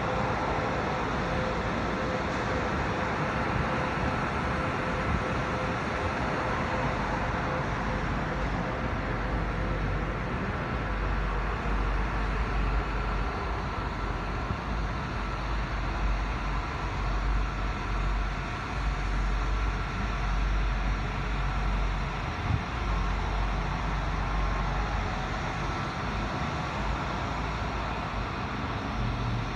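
Road traffic: cars driving past on the street, a steady noise with a heavier low rumble through the middle stretch.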